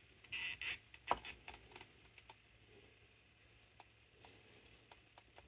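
Small metal carburetor parts and hand tools being handled on a workbench. A short burst of scraping noise comes near the start, then a sharp metallic click just after a second in, followed by scattered light ticks and clicks.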